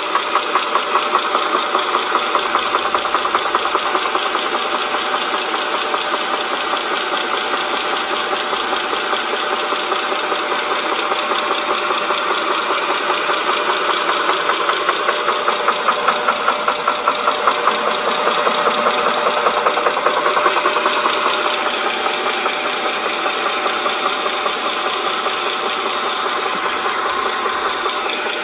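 Dodge Charger 2.7 L V6 engine running steadily with a fast, even knocking rattle, which the owner takes for a broken timing chain guide or tensioner.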